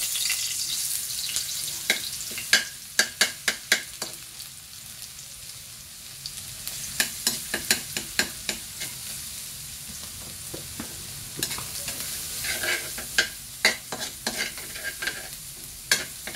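Minced garlic sizzling in hot oil in a wok, with a metal spatula clicking and scraping against the pan in runs as it is stirred. The sizzle is loudest at the start, with the garlic just in the oil, and settles to a steadier, quieter hiss.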